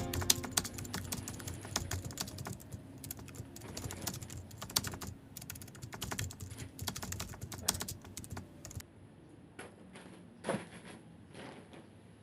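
A rapid, irregular run of light clicks and taps, thinning out to a few scattered ones about nine seconds in.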